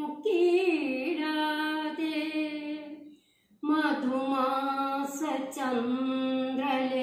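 A woman singing an old Malayalam film song unaccompanied, holding long notes with vibrato. She stops briefly for a breath about three seconds in, then goes on singing.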